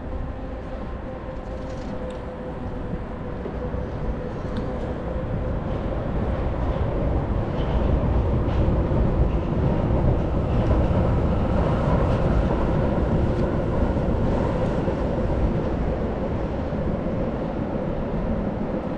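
Wind rushing over the microphone and a mountain bike's tyres rolling on asphalt, with a steady hum running under it. The noise grows louder through the middle as the bike picks up speed, then eases off a little near the end.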